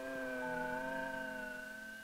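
Several steady electronic tones held together like a chord, with a higher tone joining about half a second in.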